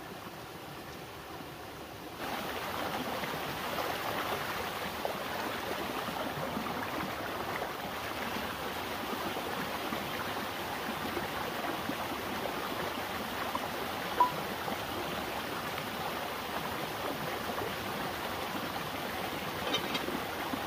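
Steady rushing water, like a stream flowing, which grows louder about two seconds in. A single short click stands out about fourteen seconds in.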